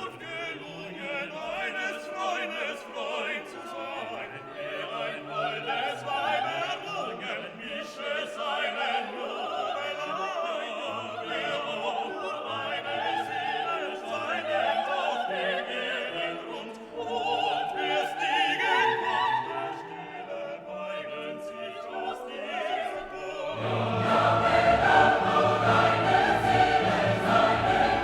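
Background music: classical choral singing with orchestra, growing fuller and louder near the end.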